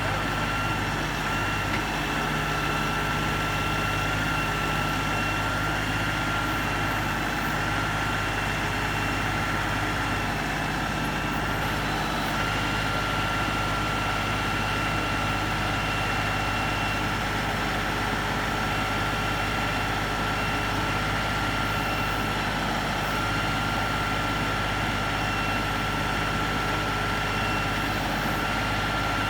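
LS XR3135 compact tractor's diesel engine running steadily while the backhoe digs, with a steady high whine over it that drops out briefly a couple of times.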